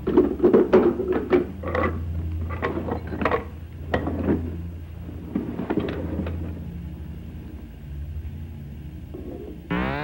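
Screwdriver clicking and scraping against a metal wall panel: a quick run of small knocks and scrapes that thins out after about six seconds, over a steady low hum. Just before the end a synthesizer tone sweeps upward.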